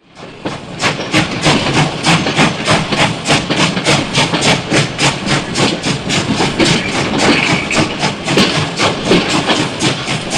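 Steam locomotive chuffing at an even pace, about three to four exhaust beats a second, over a steady hiss of steam. It fades in over the first second.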